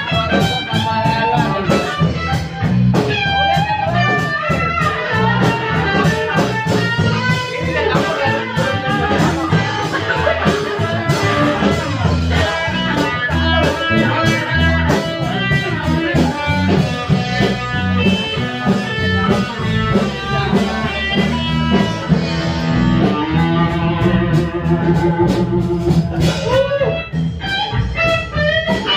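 Live blues band playing an instrumental passage, electric guitar leading over bass and drums.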